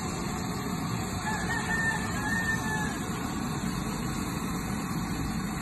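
A rooster crowing once, about a second and a half in, over steady background noise.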